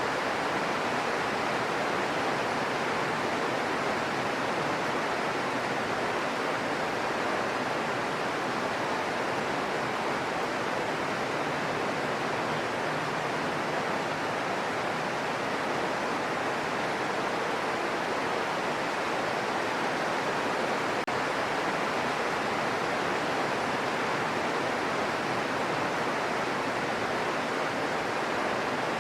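Steady rain falling: an even, unbroken hiss with no thunder claps.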